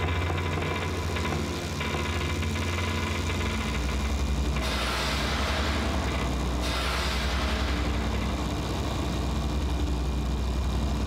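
Designed industrial ambience: a steady, low machine drone with a fast throb. A hissing rush swells in about four and a half seconds in and eases after about two seconds.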